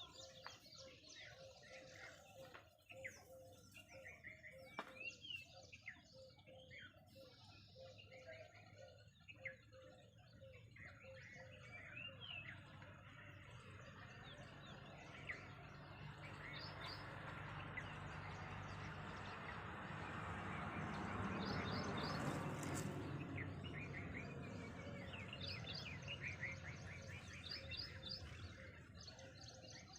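Birds chirping and calling, with many short chirps and trills. In the middle a broad rushing noise swells to its loudest about two-thirds of the way through, then fades.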